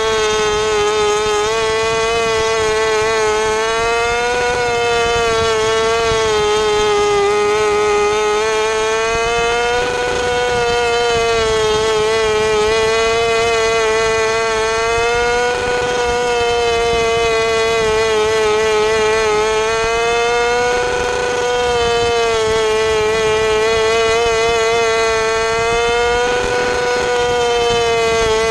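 600cc micro sprint car's motorcycle engine running at high revs, heard on board. Its pitch rises and dips about every five and a half seconds through the laps.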